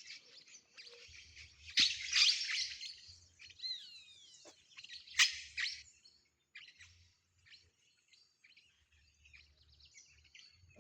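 A flock of small parrots screeching in harsh bursts, loudest about two seconds in and again around five seconds in, then thinning to scattered faint chirps.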